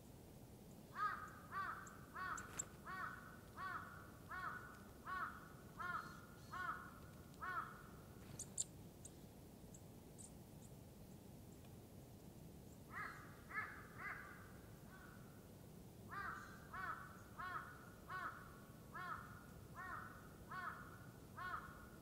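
A crow cawing in three runs of evenly spaced calls, about two a second, with pauses between the runs. A few thin, high chirps of a small bird come in the first pause.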